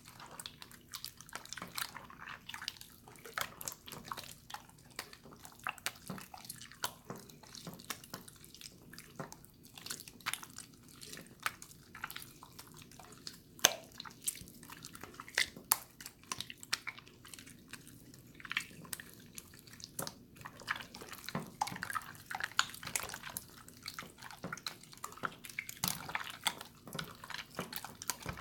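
Water slime being squished and poked by hand: a run of irregular wet clicks, pops and small splashy squelches.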